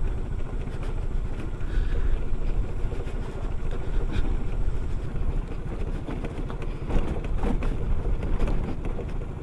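SYM Cruisym 250 scooter's single-cylinder engine running as the scooter rides along a gravel track, with a few short knocks from the tyres and chassis over the stones.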